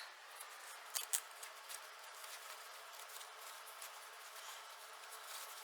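Faint handling noise: a few light clicks about a second in, then scattered small ticks and rustling as small plastic model train pieces and their wrapping are handled.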